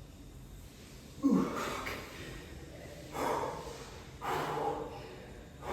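A man breathing hard: three forceful, noisy exhales a second or more apart, the first and loudest with a short falling grunt.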